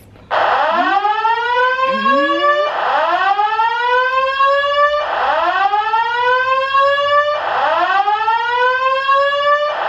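Building fire alarm evacuation system sounding its whoop tone: a loud pitched tone that sweeps upward and levels off, repeated about every two and a half seconds, between its spoken evacuation messages.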